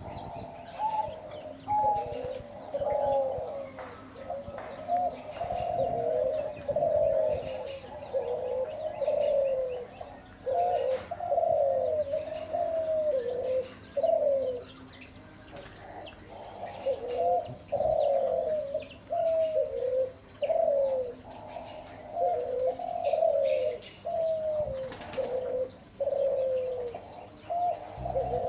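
Spotted dove (derkuku) cooing repeatedly: a steady string of short, low coos that slide downward in pitch, separated by brief pauses. Faint high chirps of small birds sound behind.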